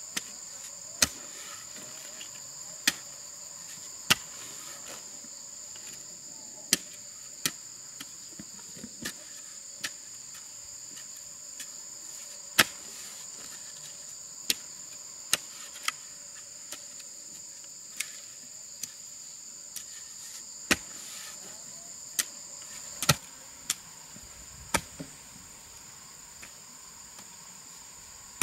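Steady high-pitched chorus of insects, with irregular sharp knocks about once a second standing out above it.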